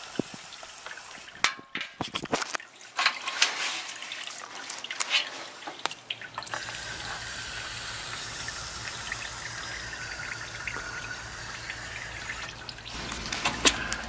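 Water dripping off a wet evaporator coil, with scattered knocks and clicks of handling. About halfway through, a steady spray of water starts hissing onto the coil for about six seconds as it is rinsed of coil cleaner.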